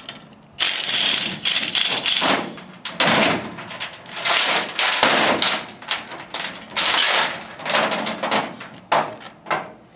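Metallic rattling and clanking from a SELF chain load binder being worked on its chain. It comes in repeated bursts, each from half a second to two seconds long, with short breaks between them.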